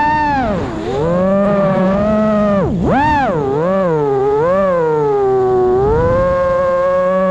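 Brushless motors and propellers of an Armattan Marmotte FPV quadcopter whining in flight, the pitch swooping down and back up with sharp throttle chops twice early on, wobbling, then holding steadier near the end.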